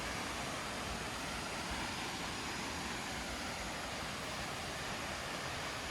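Steady rushing of water, an even unbroken hiss with no changes.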